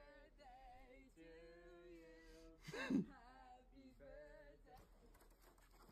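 A song playing quietly, with a woman singing held, sliding notes. There is one short, much louder sound about three seconds in, and faint rapid ticking near the end.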